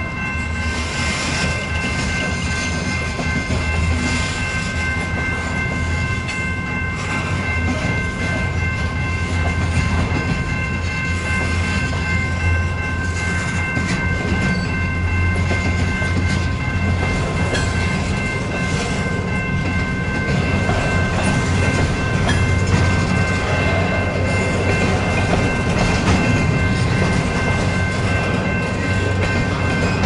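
Freight train cars (boxcars and covered hoppers) rolling past: a steady low rumble of steel wheels on rail with clicking over the rail joints, and a thin steady high ringing tone over it.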